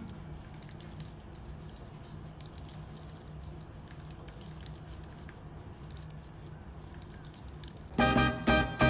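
Typing on a slim white Apple Magic Keyboard: a quick, irregular run of light key clicks. Music comes in loudly near the end.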